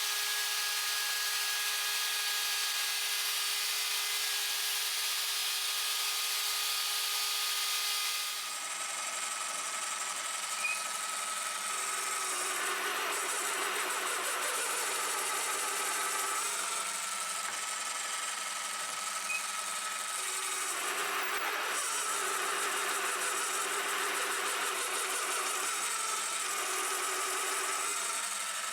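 A small electric power tool's motor running steadily with a held whine, its sound changing abruptly about eight seconds in.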